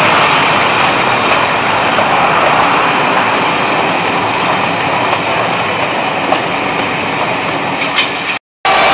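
Passenger train rolling along the track: a steady wheel-on-rail noise with a few faint clicks, breaking off abruptly near the end.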